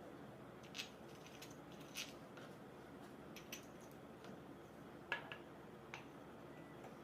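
Scattered light clicks and taps of small metal parts and tools being handled, about six in all, the sharpest just after five seconds in, over a faint steady background.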